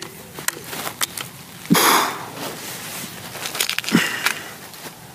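.177 break-barrel air rifle firing a single shot about two seconds in, a sharp report with a brief thump. Near the four-second mark come small metallic clicks of fingers picking in a metal pellet tin.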